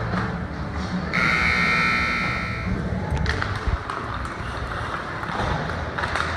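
Ice rink scoreboard buzzer sounding once for nearly two seconds, starting about a second in, followed by a few sharp clacks of sticks or puck over the rink's background noise.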